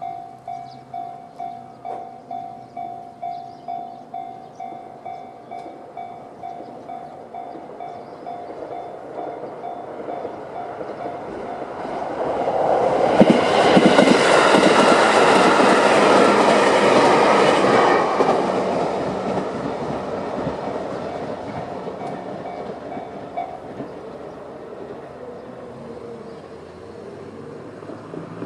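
Japanese railway level-crossing alarm, the JR standard electronic bell tone, ringing about twice a second while a JR 211-series electric multiple unit passes over the crossing. The train is loudest about halfway through and then fades. The alarm stops about four-fifths of the way through.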